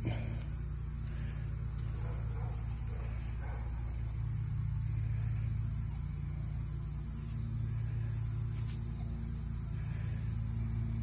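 A steady chorus of summer insects trilling continuously, high and unbroken, over a steady low hum.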